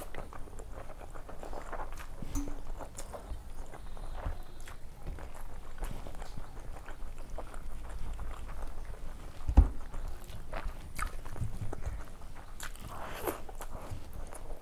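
Close-miked eating with the hand: chewing and wet mouth sounds, and fingers mixing rice on a steel plate, with many small clicks and crackles. One sharp knock comes about ten seconds in.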